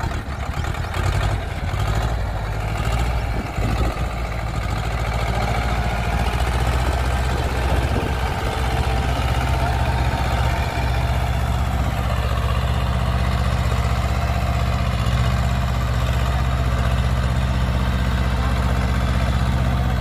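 Swaraj 724 FE tractor's two-cylinder diesel engine running steadily as the tractor pulls a cultivator through the soil.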